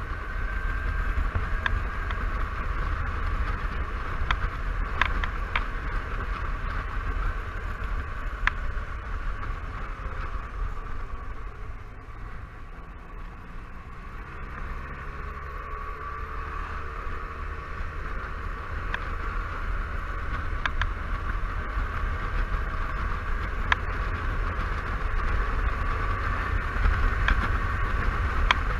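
Honda Silverwing 600 maxi-scooter riding along with wind rumbling on the microphone and the engine running steadily, with a few light knocks. It eases off around the middle as the scooter slows for a bend, then builds again.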